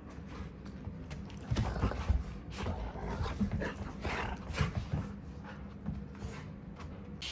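Two golden retrievers play-wrestling: irregular scuffling, thumps and dog mouthing noises that start about a second and a half in and keep on in uneven bursts.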